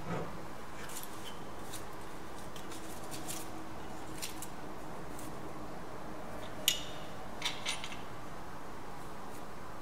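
Light clicks and knocks of hand tools being picked up and handled on a workbench, the sharpest about two-thirds of the way through, over a steady low hum.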